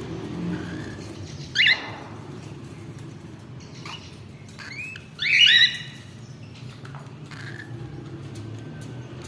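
Baby cockatiels squawking: a short rising squawk about one and a half seconds in, then a louder run of squawks around five seconds, over a steady low background hum.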